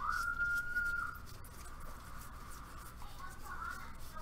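Trading cards sliding and rubbing against each other as a stack is sorted by hand. A whistled note is held for about a second at the start, and wavering whistled notes return near the end.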